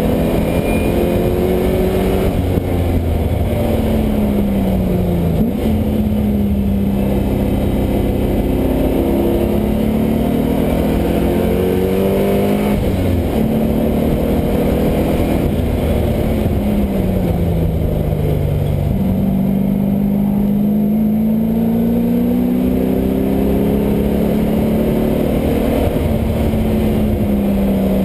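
LS1 V8 in a Mazda Miata running hard on track, its pitch climbing under throttle and dropping twice when the driver lifts and brakes for corners, then pulling up again.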